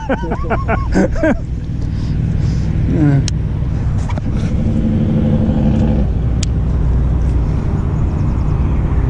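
Wind buffeting the microphone with a steady low rumble, with a short humming tone from about four to six seconds in.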